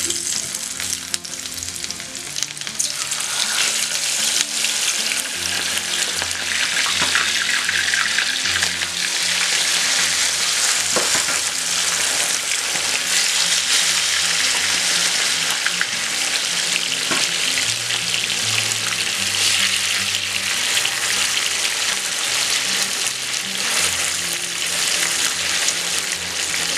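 Whole fish frying in hot oil in a frying pan: a loud, dense sizzle of bubbling oil that grows stronger about two to three seconds in as the fish take the heat. A metal spoon moves through the oil.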